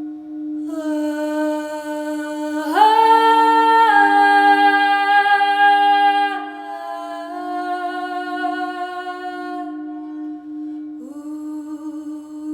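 A singer toning long, wordless held notes that step up and down in pitch, over a steady low drone. The highest and loudest note comes about 3 s in, and a new note slides up near the end.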